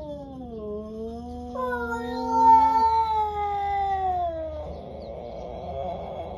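Two cats, a tabby and a black-and-white tuxedo stray, caterwauling at each other in a territorial standoff: long, slowly gliding yowls, the two voices overlapping, a low one and a higher one that slides down. About four and a half seconds in the yowling turns rough and noisy.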